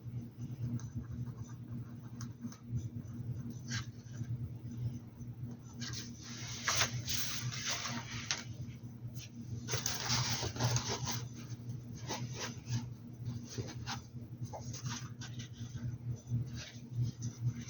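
Paintbrush scratching and rubbing over a hat's surface in short, irregular strokes, busiest about six and ten seconds in, over a steady low hum.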